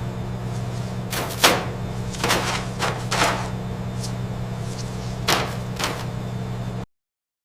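Steady hum of processing-line machinery with several sharp knocks and clunks at irregular intervals. The sound cuts off abruptly near the end.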